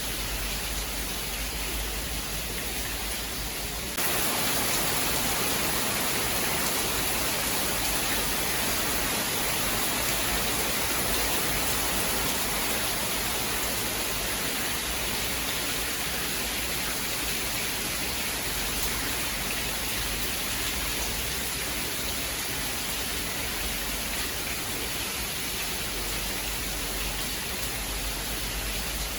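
Steady heavy rainfall, a dense even hiss with no thunder clap; about four seconds in it turns abruptly louder and hissier and stays so.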